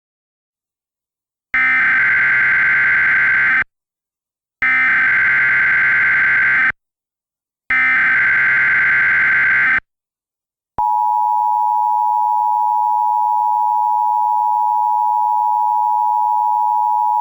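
Emergency Alert System alert tones: three bursts of SAME header data, each about two seconds long with a second's gap between, then about eleven seconds in the steady two-tone EAS attention signal begins.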